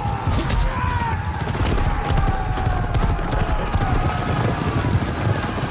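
A group of horses galloping, a dense stream of hoofbeats on sand, with a held tone sliding slowly lower above it.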